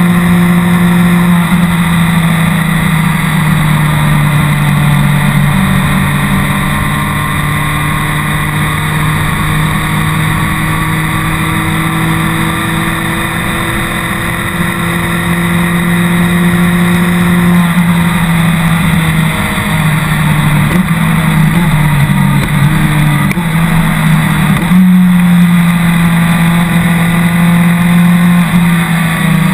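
BMW K1200R Sport's inline four-cylinder engine running steadily at road speed, with wind noise. Partway through, the engine note drops and wavers, then steps back up near the end.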